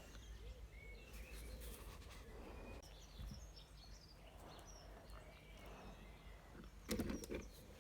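Quiet outdoor background with faint, scattered bird chirps, and a short louder sound about seven seconds in.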